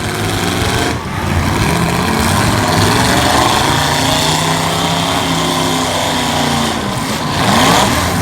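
Demolition derby V8 car engines running hard, one revving up over a few seconds and easing back down.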